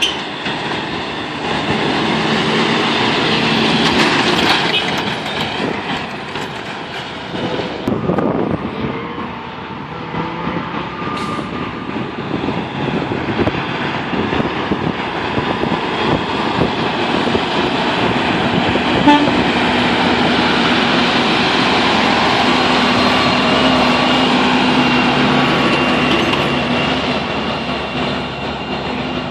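Heavy trucks passing on a road, with a truck's air horn sounding a held chord for several seconds in the second half.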